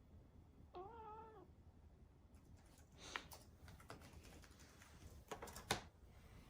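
Brown tabby cat giving one short, slightly wavering meow about a second in. A few scattered light clicks and rustles follow, the sharpest near the end.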